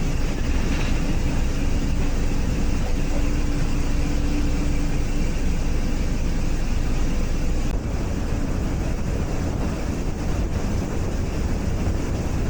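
Steady low rumble of a passenger carriage in motion on a heritage steam railway. The level drops slightly about eight seconds in.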